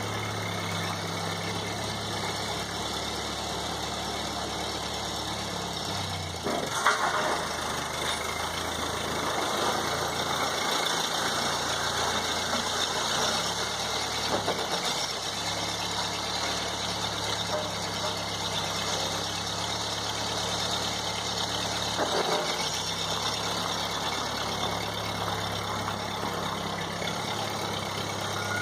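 1952 Ford 8N farm tractor's four-cylinder flathead engine running while it pushes gravel with a blade. Its note shifts a few times as the load changes, with a sharp clunk about seven seconds in.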